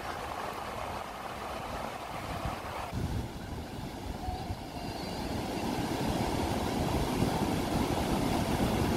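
Waves breaking on a sandy beach, with wind buffeting the microphone. About three seconds in the sound changes to a deeper, fuller rumble of wind and surf that grows louder.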